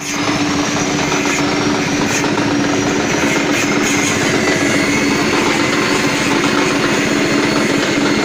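Small stationary petrol engine running steadily at working speed, belt-driving a dry-soybean dehulling machine. The two blend into one loud, even mechanical drone with a steady hum and a thin high whine.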